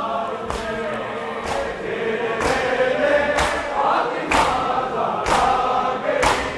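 Men's voices chanting a noha in chorus, with a crowd's matam chest-beating striking in unison about once a second; the strikes grow stronger from about halfway through.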